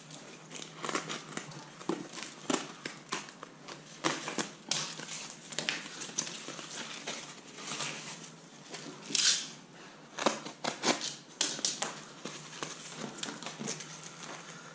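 Aluminium foil tape being unrolled, crinkled and pressed by hand around a plastic ventilation duct fitting: irregular crackling and crinkling, with one louder, longer rasp about nine seconds in.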